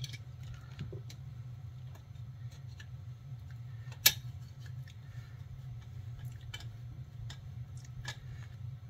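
Small metallic clicks and ticks of a screwdriver turning screws on a chainsaw's new muffler, with one sharp click about four seconds in, over a steady low hum.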